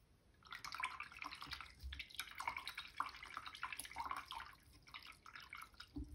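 Paintbrush swished and rinsed in a jar of water: faint, irregular splashing and light taps against the jar, starting about half a second in. The brush is being cleaned of red gouache before changing to black.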